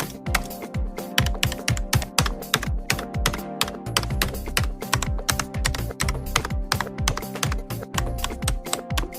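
Typing on a vintage mechanical keyboard: quick, irregular key clicks throughout, over background music.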